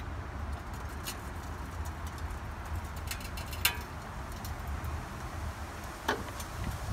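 Front suspension of a Ford E450 settling as the floor jack is lowered, with a few sharp metallic clicks and a brief creak as the old shock absorber drops free. A low, steady rumble runs underneath.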